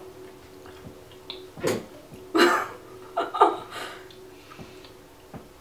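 A person spitting a chewed jelly bean out into a paper cupcake liner: four short breathy bursts from the mouth and throat, between about one and a half and three and a half seconds in.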